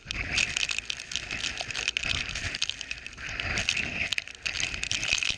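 Hurricane winds and heavy wind-driven rain: a steady rush of wind with dense, rapid ticking of rain striking hard surfaces.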